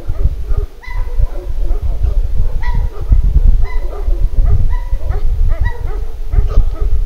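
Dogs barking repeatedly at night, about a dozen short, sharp barks at irregular intervals, over a heavy low rumble.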